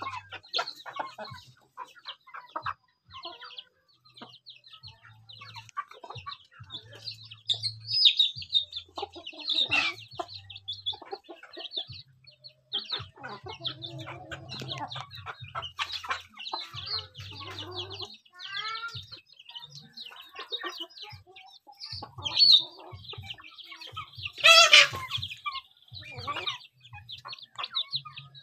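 Free-range chickens clucking, with chicks peeping in many short high calls. A few louder, sharper calls stand out about eight, ten and twenty-four seconds in.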